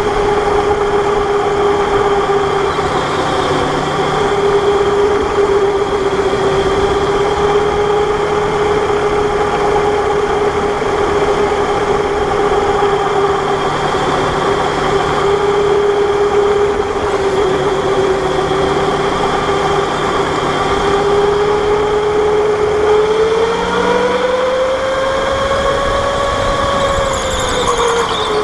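Electric go-kart running at speed, heard from on board: a steady motor whine over tyre and rolling noise. The whine rises in pitch about four-fifths of the way through, then drops again near the end.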